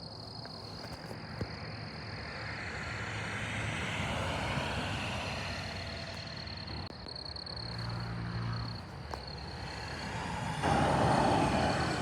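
Vehicles driving past on a road: the noise swells and fades as one goes by about four seconds in, a low engine hum follows near eight seconds, and it grows loud suddenly near the end as another comes close. A steady high trill runs behind them throughout.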